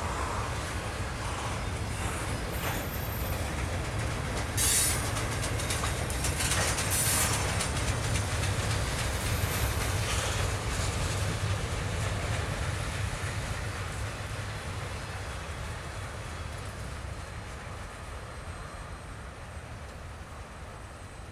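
Double-stack intermodal container cars rolling past on the rails with a steady rumble and wheels clicking over rail joints. There are short high wheel squeals about five and seven seconds in, and the sound fades toward the end as the train moves away.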